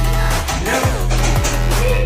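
Background music: electronic track with a heavy sustained bass, sliding bass drops and a steady beat.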